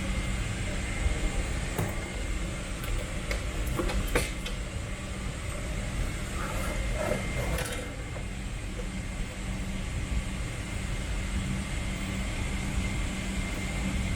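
Steady low rumble and hiss of a Boeing 777-300's cabin, with a faint steady whine above it. A few light clicks and knocks come about two to four seconds in and again around seven seconds.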